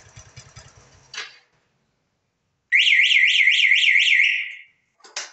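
Motorcycle engine idling, cut off about a second in with a click as the remote-control system switches the bike off. After a short silence an electronic alarm sounds a loud warbling siren for nearly two seconds, rising and falling about four times a second, followed by a click near the end.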